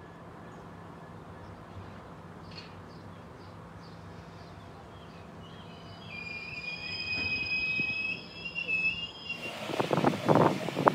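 Train of empty cement tank wagons being propelled slowly by a Class 66 diesel locomotive: a steady low engine drone, then about six seconds in the wagon wheels squeal in several high tones for about three seconds. Near the end, wind buffets the microphone in gusts.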